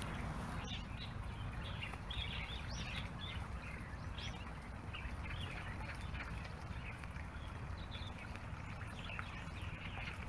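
Birds chirping, many short calls coming quickly one after another, over a steady low rumble.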